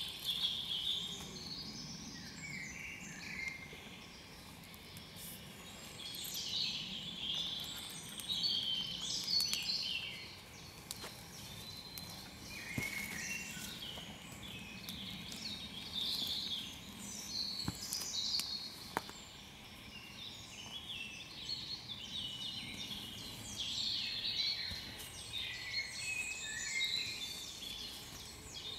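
Songbirds singing, many short chirps and warbles overlapping, with a few faint sharp crackles from a small feather-stick campfire.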